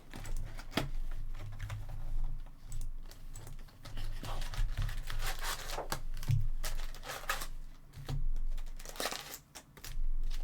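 Crinkling, tearing and rustling as a sealed box of trading-card packs is unwrapped and opened and the foil packs are pulled out and handled, in a run of irregular short rustles and clicks over a low hum.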